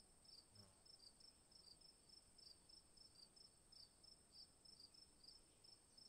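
Near silence, with very faint high-pitched chirping repeating about three times a second over a faint steady high tone.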